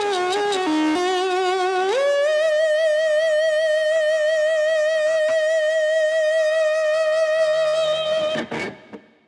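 Background music, the closing bars of a song: a lead melody line slides up about two seconds in to a long note held with vibrato, then the music stops shortly before the end.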